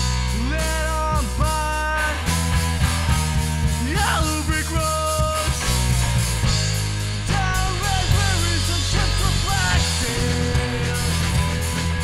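A punk rock band playing live on electric guitar and bass guitar, with sliding pitched notes over a heavy, steady low end.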